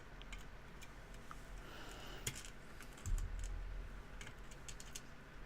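Scattered light clicks and taps from small lock parts being handled, with a dull low bump about three seconds in.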